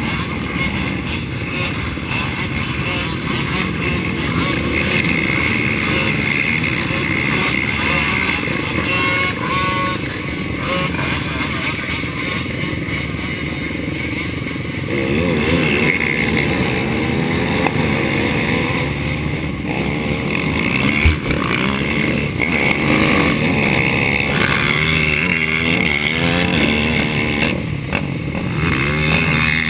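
Racing ATV engine running hard, its pitch rising and falling over and over as it revs up and down, with one sharp knock about two-thirds of the way through.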